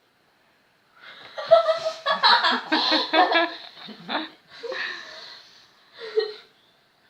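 Laughter in short, choppy bursts for about three seconds. A breathy, quieter stretch follows, then one last short burst near the end.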